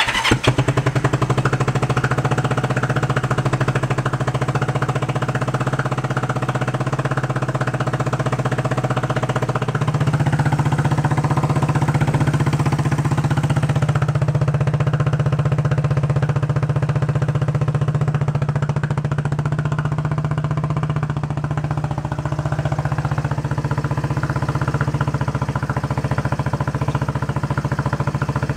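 1971 Honda CB350's air-cooled parallel-twin engine firing up and running steadily on its own. It is running mainly on the left cylinder with the right one barely firing, which the owner puts down to that side being flooded or its fuel mixture being far off.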